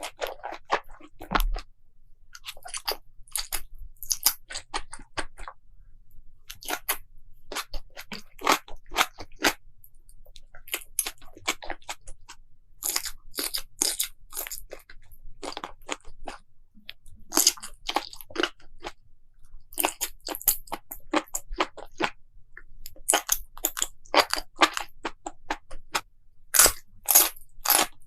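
Close-miked crunchy chewing and biting, mukbang-style: rapid crackling crunches in bursts a second or two long, separated by short pauses.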